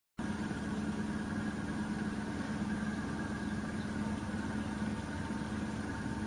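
Steady machine hum with a few held tones, starting right after a moment of dead silence at an edit cut.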